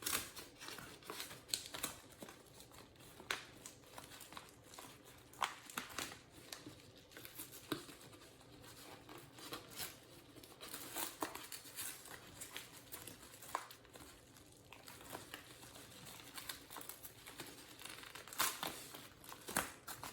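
Plastic packaging being crinkled and torn open by hand: faint, irregular crackles and rustles.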